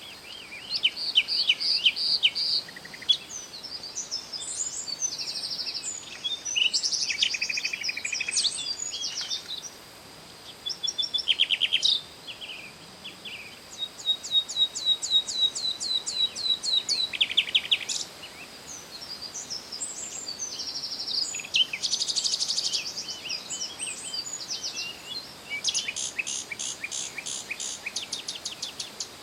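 Songbirds singing: a run of varied high chirps, whistled notes and fast trills in short phrases with brief gaps between them, over a faint steady high tone.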